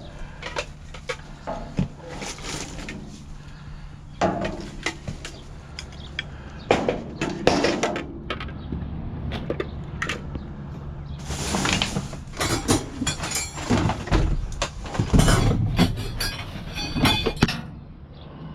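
Repeated clanks, knocks and rattles of scrap being handled and moved, thickest in the second half, over a steady low hum that drops away about three quarters of the way through.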